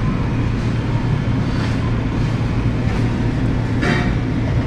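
Flat rice noodles being stir-fried in an open kitchen, over a steady low hum, with a short clatter near the end.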